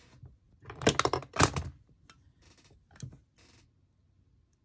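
Small metal craft items handled on a work table while a jump ring is opened: a quick cluster of sharp clicks and taps about a second in, then a few fainter clicks and rustles.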